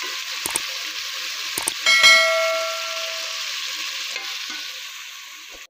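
Potato-spinach bhujia sizzling steadily in hot oil in a pot, the oil separated from the masala as the dish finishes frying. Two faint clicks come in the first second and a half, and about two seconds in a clear metallic ding rings out and dies away over a second or so. The sizzle slowly fades toward the end.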